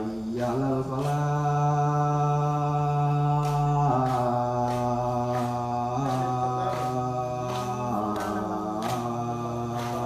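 A man's voice chanting in long held notes, moving slowly from one pitch to the next every few seconds.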